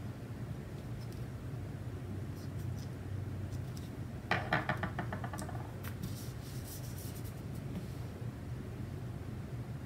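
Paper and stickers being handled on a planner page: a short burst of rapid scratchy rustling about four seconds in as a sticker is pressed down, then a lighter crackle of paper for a second or so. A steady low hum runs underneath.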